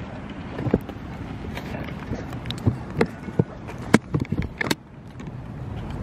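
About a dozen irregular sharp clicks and knocks over a steady outdoor background noise, which dips briefly about five seconds in.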